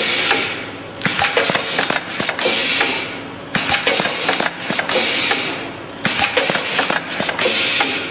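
Pneumatic automatic steel clipping machine for pleated car-filter paper, cycling about every two and a half seconds. Each cycle is a quick cluster of metallic clacks from the cylinders and clamps, then a hiss that fades.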